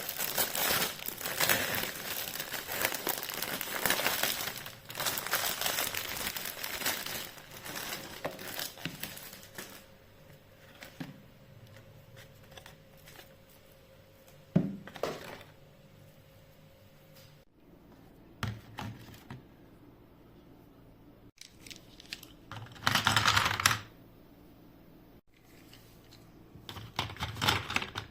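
Crinkling and tearing of handled material, dense and continuous for the first ten seconds or so. It then thins to scattered clicks and taps, with two short bursts of rustling near the end.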